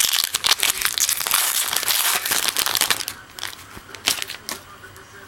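Foil wrapper of a trading-card pack crinkling and being torn open for about three seconds, then fainter scattered rustles and clicks as the cards are handled.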